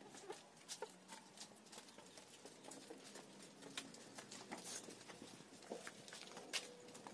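Faint, irregular taps and clicks of a Murrah buffalo's hooves and a person's footsteps on a wet concrete passage, with one sharper click near the end.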